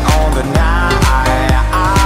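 Background pop music with a steady beat of about two strokes a second.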